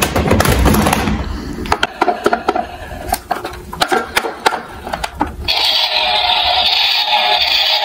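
Plastic toy cars knocking and clattering in a cardboard box as one is lifted out, a few sharp clicks at a time. About five and a half seconds in, a steady loud whirring sets in and holds.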